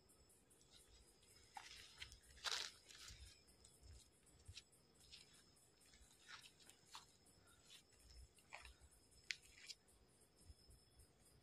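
Quiet, intermittent rustling and crunching of a white cotton shroud being shaken out and wrapped around a person, mixed with gritty footsteps on sandy ground. The loudest crunch comes about two and a half seconds in.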